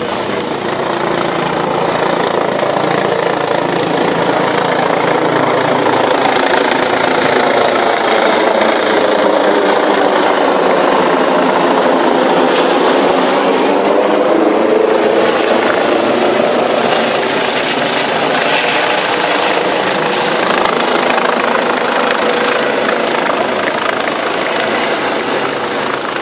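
Gendarmerie helicopter flying overhead: loud, steady rotor and engine noise.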